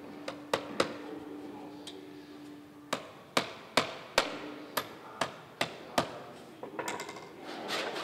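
Hammer blows on a wooden pole: a few light taps, then a run of about eight even strikes, roughly two and a half a second. Near the end a hand saw starts rasping through wood.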